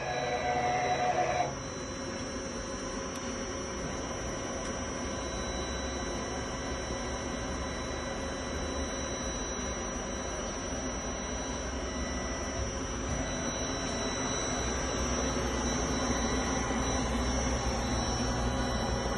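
Matsuura MC-500V2 vertical CNC machining center running, a steady machine hum with a high, even whine. A louder whirring tone in the first second and a half stops suddenly.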